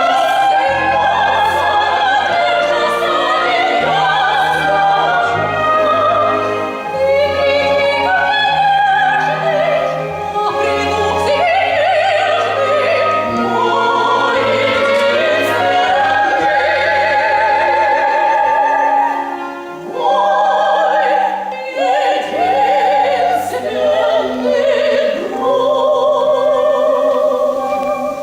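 Operetta singing in classical style with a symphony orchestra accompanying: sung phrases with long vibrato-laden held notes over orchestral bass lines, closing on a final held note that stops near the end.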